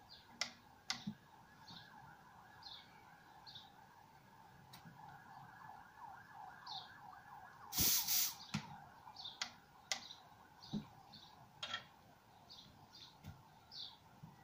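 Small birds chirping in short, repeated calls over a faint wavering tone. There are a few sharp clicks, and a short, loud rush of noise about eight seconds in.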